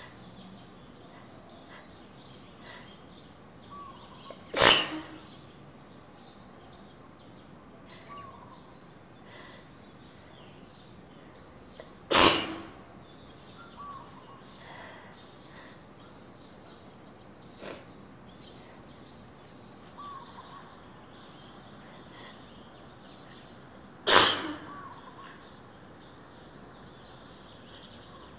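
A person sneezing three times, loud and harsh, each sneeze ringing on in the echo of an empty stairwell. The sneezes come about eight and then twelve seconds apart.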